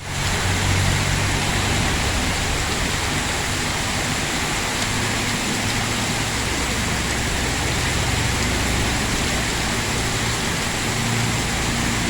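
Heavy rain falling steadily, a constant hiss, with a low rumble of road traffic underneath.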